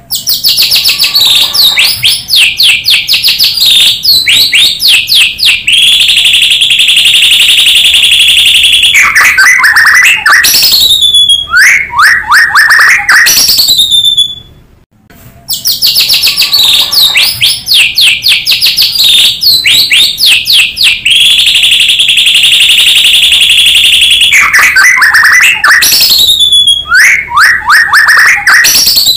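White-rumped shama (murai batu) singing loudly, its song filled with canary phrases: fast chattering trills, a long rolling trill held for about three seconds, then downward sweeping whistles. The same fifteen-second passage plays twice, as a looped lure recording.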